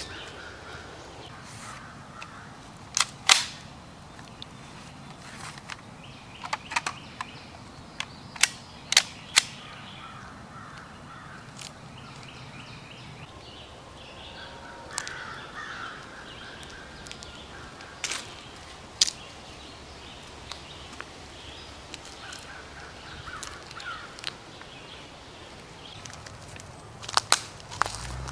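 Sporadic gunshots: about a dozen sharp cracks at irregular intervals, some single and some in quick pairs, over a quiet outdoor background.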